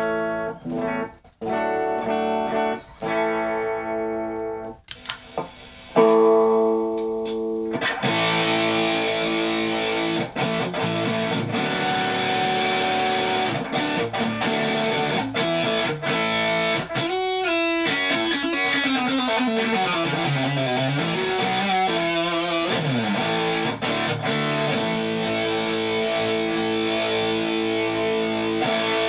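Electric guitar played through a 1990s Tech 21 XXL distortion pedal into a small 6-inch bench amp. First come a few separate chords with short gaps; from about eight seconds in a continuous, dense distorted tone holds, with its pitch swooping down and back up about two-thirds of the way through.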